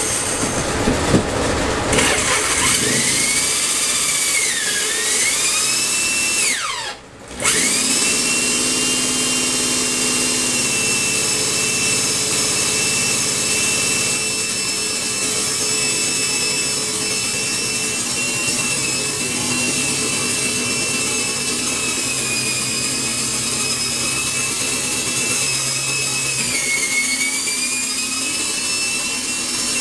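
Electric power tool motor whining at speed, its pitch sagging now and then as it bears into the wood. About seven seconds in it winds down and stops briefly, then spins back up.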